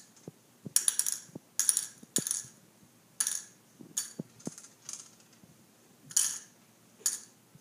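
Small hard-coated candies dropped one at a time into small plastic cups, each landing with a short clicking clatter. There are about ten drops, spaced unevenly.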